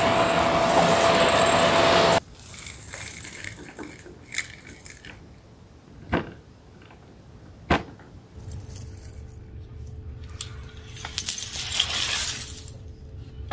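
A stick vacuum running with its bare wand on carpet shuts off about two seconds in. A few sharp clicks of the dust bin being handled follow, then near the end small debris rattles as it pours out of the emptied bin onto the carpet.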